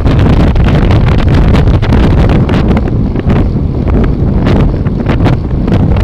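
Heavy wind buffeting on a rear-facing Cycliq bike camera's microphone as the bike rides at speed, mixed with road rumble and frequent short rattles.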